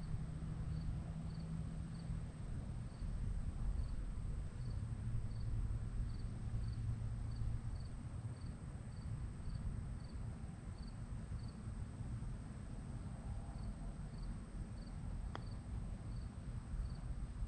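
A cricket chirping in short, evenly spaced high chirps about twice a second, pausing briefly partway through, over a low steady rumble. Near the end there is one sharp click.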